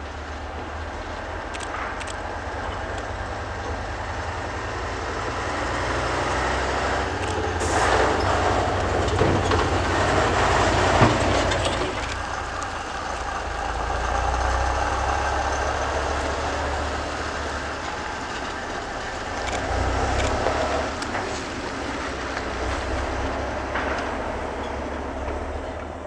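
Tatra dump truck's diesel engine running as the truck drives by, with a deep pulsing throb. It swells and fades several times, loudest about eight to twelve seconds in, with a single sharp knock near the peak.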